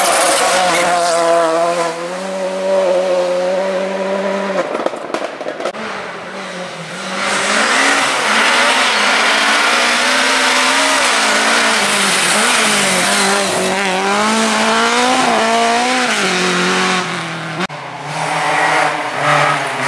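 Rally cars at speed on a forest stage, one after another, engines revving hard and rising and falling in pitch through the gears. The sound changes abruptly a few times as one car gives way to the next.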